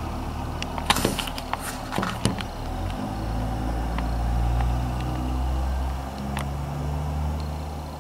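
Steady low mechanical rumble, like an engine running at a distance, with a quick cluster of sharp clicks between about one and two and a half seconds in.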